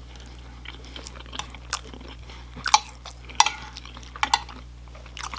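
A person chewing food close to the microphone, with scattered sharp crunches and wet mouth clicks, the loudest a little under three seconds in and again half a second later.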